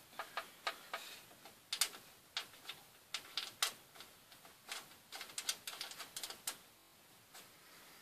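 Motherboard standoffs being screwed by hand into a computer case's metal motherboard tray: a run of small, sharp, irregular clicks and ticks, a few a second.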